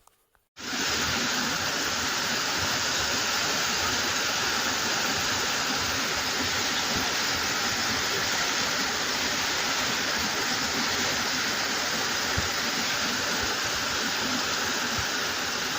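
Steady rushing noise like running water, with no change in level. It starts abruptly about half a second in and cuts off suddenly at the end.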